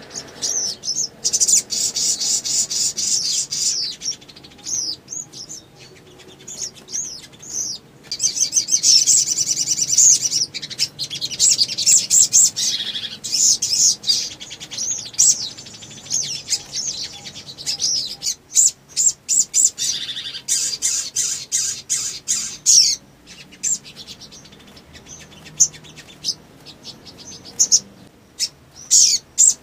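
Male sunbird (sogon) singing in a cage: long runs of rapid, high-pitched chirps and trills in several bursts, with short pauses between them.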